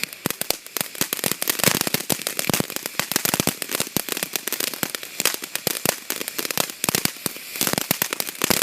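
Small consumer firework going off in a dense, irregular run of sharp crackling pops, many a second.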